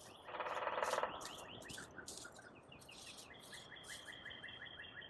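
Small wild birds chirping: a brief trill near the start, then a quick run of short repeated chirps over a thin, steady high note.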